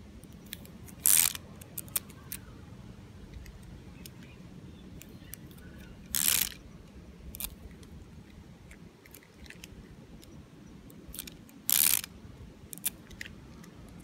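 Wooden gear-driven woodpecker tape dispenser worked three times, about five seconds apart. Each pull of cellophane tape gives a short noisy burst of about a third of a second as the gears set the woodpecker pecking, with a few light clicks between.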